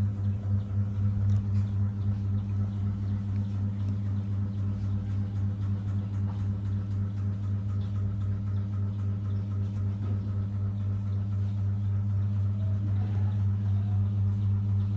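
A steady low hum that runs unbroken throughout.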